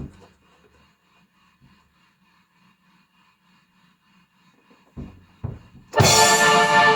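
A faint repeating tick for about five seconds, then two drum hits, and about six seconds in a drum kit with a cymbal crash and keyboard chords come in loudly together.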